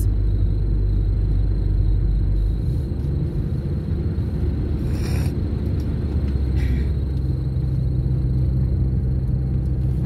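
Car cabin rumble while driving: steady low engine and tyre noise heard from inside the car. The low drone shifts in pitch about two and a half seconds in and again later on.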